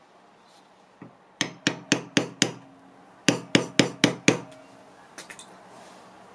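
A hammer striking a hand-held metal leatherworking tool set on leather over a wooden block: five sharp strikes about four a second, a short pause, then five more, with a faint tap before and a few light ticks after.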